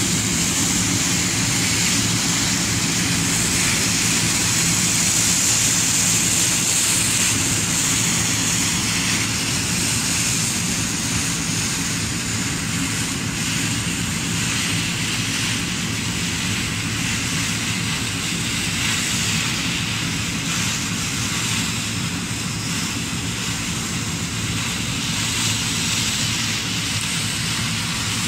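Combine harvester running steadily at work, its diesel engine humming under the rushing noise of the cutting and threshing machinery.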